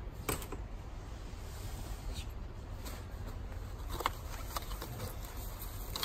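Folding camping chairs being handled: their metal tube frames knock and click against each other a few times as they are pulled from a pile, over a steady low hum.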